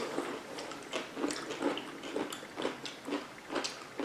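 Someone chewing a sour pickle topped with whipped cream: a string of soft, irregular chewing clicks and bites.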